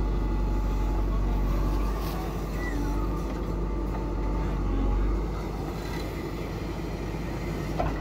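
JCB 3DX backhoe loader's diesel engine running steadily under working load, with a deep low hum; the engine note eases off somewhat after about five seconds.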